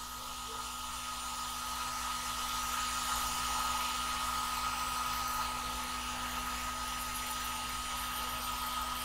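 CNC router's spindle motor spinning at speed before it starts to cut: a steady high whine over an even hiss.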